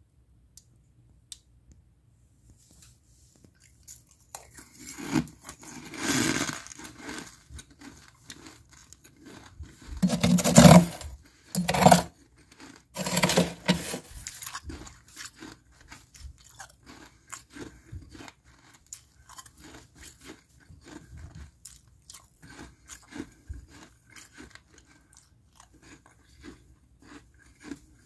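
A metal spoon scraping and scooping thin, flaky frost built up inside a freezer. Several loud scraping strokes come in the first half, followed by lighter crunching and crackling of the loose ice crystals.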